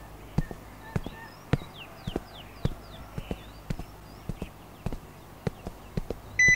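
Footsteps on a hard walkway, a steady pace of about two steps a second, with small birds chirping. Near the end a car gives a short loud electronic chirp as its key fob is pressed.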